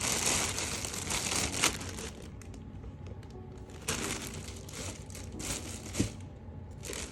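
Plastic bag crinkling in irregular spurts as roller skates are pulled out of it, loudest in the first couple of seconds, with a sharp click about six seconds in.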